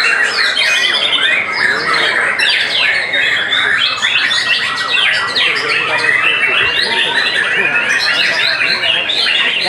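Several white-rumped shamas (murai batu) singing at once, a dense overlapping chorus of whistles, trills and chattering calls with no pause.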